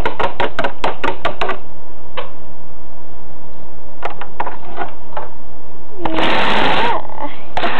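Plastic Littlest Pet Shop toy figures tapping rapidly on a wooden floor as they are hopped along, then a few scattered taps. About six seconds in there is a brief, loud burst of noise.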